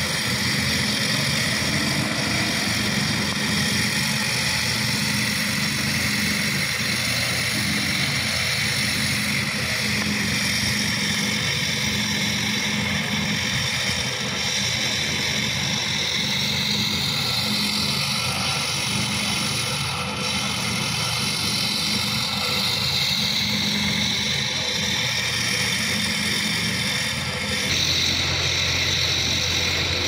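Heavy diesel construction machinery, a slipform concrete paver and an excavator, running steadily.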